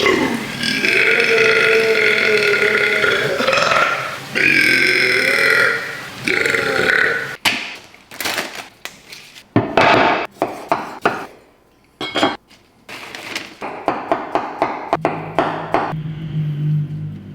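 A person belching: three long, drawn-out belches in the first seven seconds, the first lasting nearly four seconds. These are followed by a run of short, irregular clicks and taps.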